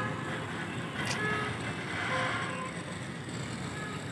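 Steady hum of distant city traffic heard from high up, with wind buffeting the microphone and a few faint short tones.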